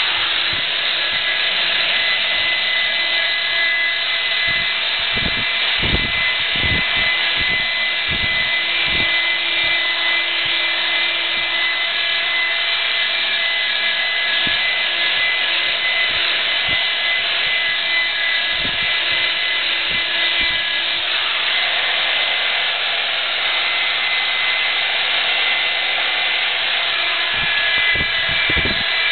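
Electric rotary polisher running steadily with a constant high motor whine as its spinning pad compounds out wet-sanding marks in car paint. Scattered low thumps come through at times.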